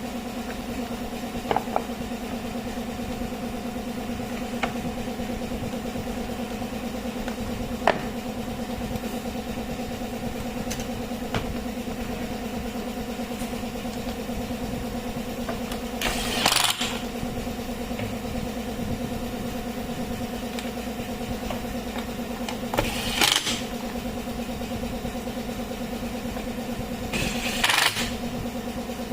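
Makita DUH601 18V cordless hedge trimmer running steadily with an even hum. Three short, louder rushes of noise break in past the middle and twice more near the end.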